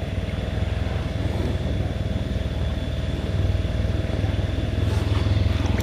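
A small engine running steadily with a fast, even pulse, growing a little louder about three seconds in.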